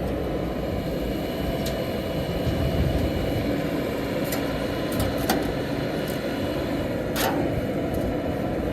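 JCB 3DX backhoe loader's diesel engine running steadily while it loads mud, with a few short sharp clicks or clanks, the clearest about seven seconds in.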